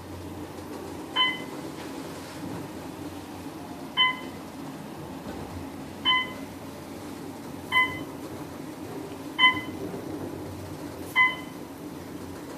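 Elevator car travelling with a steady hum, while a short electronic chime sounds six times, about every two seconds, as the car passes each floor.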